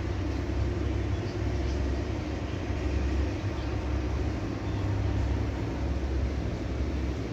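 A steady low rumble of background noise, with no distinct events.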